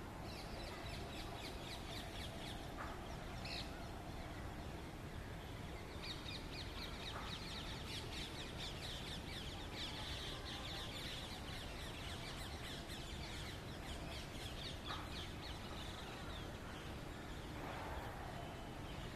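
Birds chattering and chirping in quick high runs, a short one at the start and a longer one through the middle, with a few single lower calls between, over a steady low outdoor hiss.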